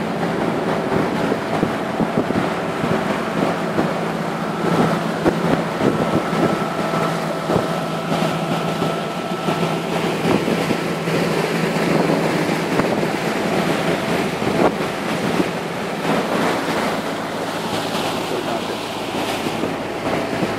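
Motorboat under way at a steady cruising speed: an even engine hum beneath the rush of water along the hull and wake, with wind buffeting the microphone.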